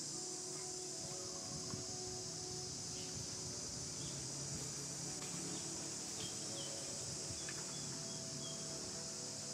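Steady high-pitched insect chorus, a continuous shrill buzz, with faint low hum and a few small ticks underneath.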